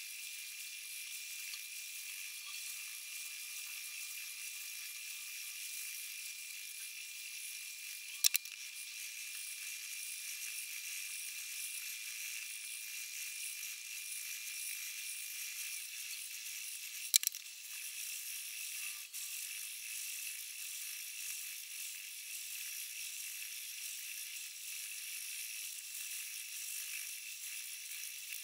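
An 800-grit diamond sharpening stone scraping along the steel edge of a kitchen knife clamped in a guided sharpener: a continuous hissing rasp, with a sharp click about a third of the way in and another a little past halfway.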